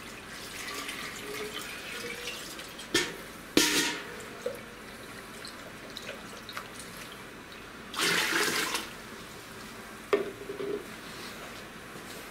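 Disinfectant solution (water with a little peracetic acid) being poured and swirled between a stainless steel pot and a plastic measuring jug to rinse the jug. There are a few knocks and splashes, and one rushing pour about eight seconds in is the loudest.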